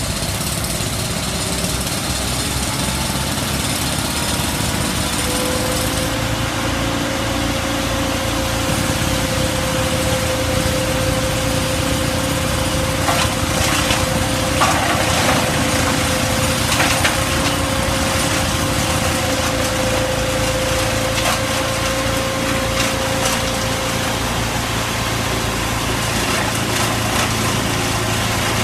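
Wood chipper running steadily under load, its engine pitch rising slightly a few seconds in, with a cluster of sharp cracks about halfway through as wood goes through the chipper.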